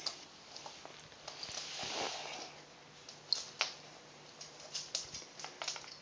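Soft rustling of a hand rubbing a pet raccoon dog's fur, swelling about two seconds in, with scattered light clicks and taps as the animals move about on a wooden floor, more of them in the last two seconds.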